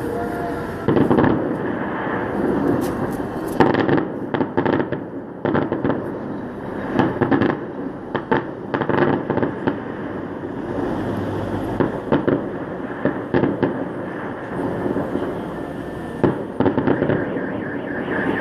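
Fireworks salute going off: many sharp bangs and crackles, some singly and some in quick clusters, over a continuous background noise.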